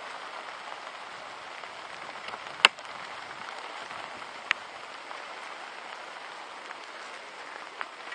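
Steady rain falling, an even hiss, broken by a couple of short sharp clicks, the loudest about two and a half seconds in.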